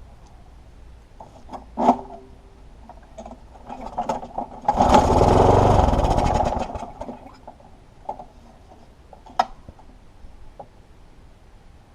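Lawnmower engine pulled over on its recoil starter cord, cranking in a rapid pulsing run for about two seconds and dying away without catching. The owner thinks the carburettor is clogged with oil. A sharp knock comes before the pull and another near the end.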